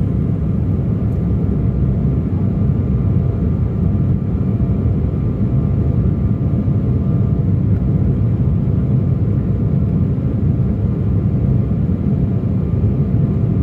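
Embraer E175's GE CF34 turbofan engines at takeoff thrust, heard inside the cabin as the jet lifts off and climbs: a steady low rushing noise with faint steady whining tones above it.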